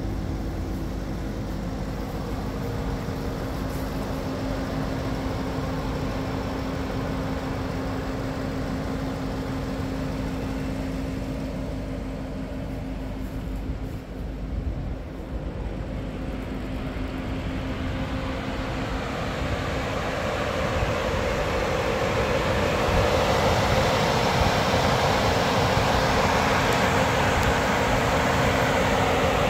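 A parked 2021 Audi RS 6 Avant running at idle: a steady hum with a hiss of air. The hiss grows louder and brighter about two-thirds of the way in.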